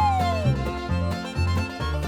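Upbeat background music with a steady, repeating bass line. A long falling glide in pitch dies away about half a second in.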